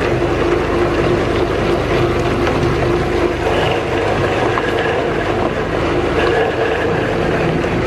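LM832 electric commercial meat grinder running under load, its motor and feed screw forcing meat through the cutting plate: a steady hum.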